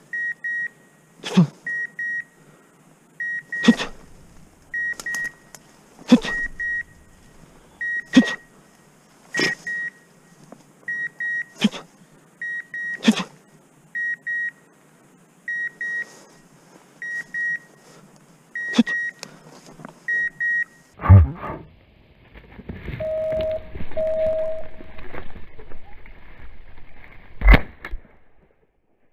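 Electronic beeper collar on a pointing dog sounding a high double beep about once a second, with sharp ticks in between: the steady point signal of a dog holding a point on a quail. Near the end the beeping stops, there is rustling through grass, and a single loud shotgun shot goes off.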